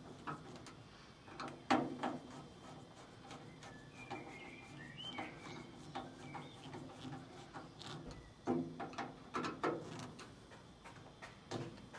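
Irregular clicks and knocks of a metal tool working at the inlet valve fitting on a washing machine's metal casing, loudest around two seconds in and again around eight and a half to nine and a half seconds. A bird chirps briefly about four to five seconds in.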